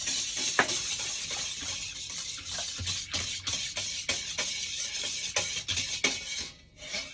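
Wire whisk beating a thin, watery liquid in a stainless steel bowl: rapid swishing and splashing with many quick clicks of the wires against the bowl, stopping just before the end.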